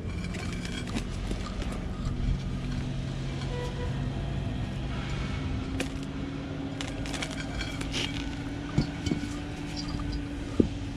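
Small metallic clinks and a couple of sharp knocks as a forklift wheel hub and brake drum are handled and pulled off, over a steady low mechanical hum.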